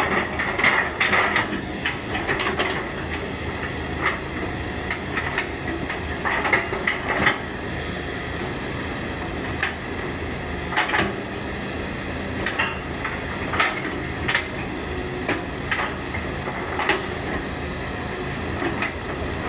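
Excavator's diesel engine running steadily, with irregular sharp metallic clanks and knocks every second or so, loudest in the first few seconds.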